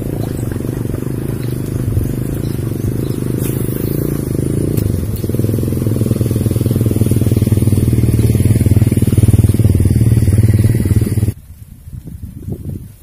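A small engine running steadily with a low drone, growing louder toward the middle, then cut off abruptly about eleven seconds in. Quieter outdoor noise follows.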